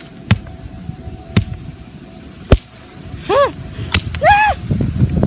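A hammer striking a hard gobstopper: four sharp knocks about a second apart, the third the loudest. Near the end come two short high-pitched squeals that rise and fall in pitch.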